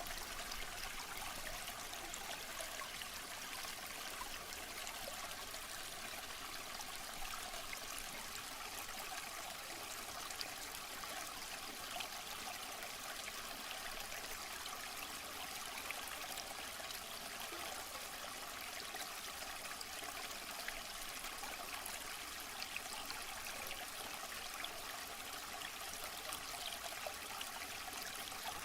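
Waterfall: falling water splashing steadily, a continuous hiss of spray with small scattered splashes.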